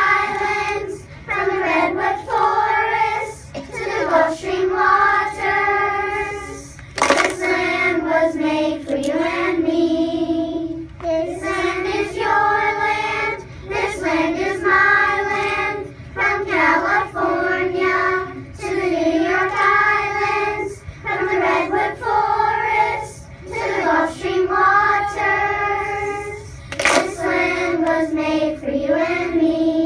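A children's choir of third graders singing a song together, phrase after phrase with short breaks between lines.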